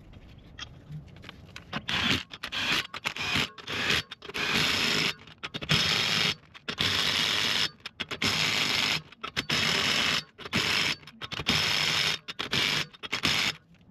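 DeWalt cordless impact wrench running the wheel's lug nuts on. About two seconds in, it starts a series of short bursts, each about half a second to a second long with brief pauses between them.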